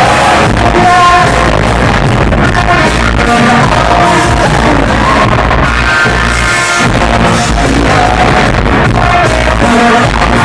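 Loud rock music: a band playing with a singer.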